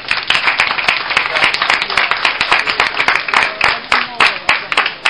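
Small audience clapping by hand, a dense run of claps that starts abruptly and thins out near the end.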